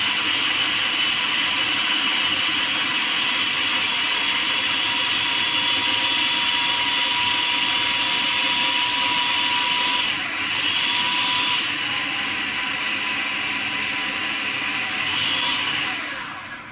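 Electric food processor (chopper) motor running steadily at full speed, its blade chopping a thick mixture of boiled moong dal and potato with fresh herbs and green chillies. The whine briefly drops about ten seconds in, picks back up, then winds down and stops near the end.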